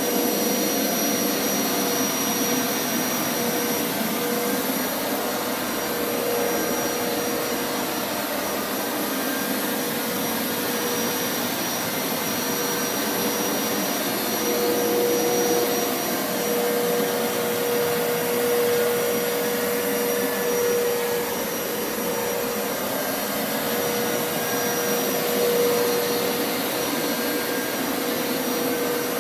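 Hoover Power Scrub Elite upright carpet washer running steadily, its suction motor drawing air and dirty water up from wet carpet, with a constant whine. The pitch of the whine wavers slightly as the machine is pushed and pulled over the carpet.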